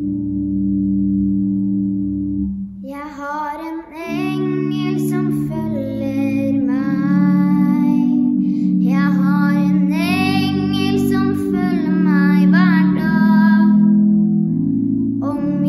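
A boy singing solo over steady held instrumental accompaniment chords. His voice comes in about three seconds in.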